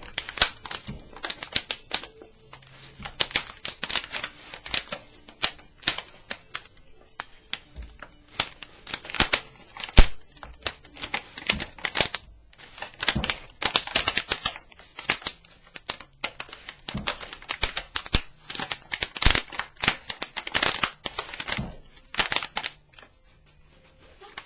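Banjo head being worked by hand to pull out its folds and puckers, giving a run of irregular crinkling clicks and taps, some louder than others.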